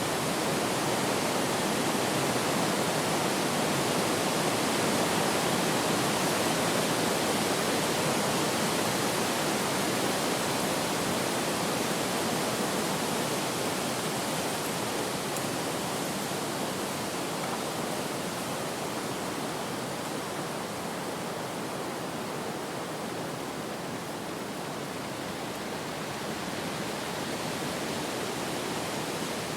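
Steady rushing wind, a little louder in the first several seconds and easing slowly after the middle.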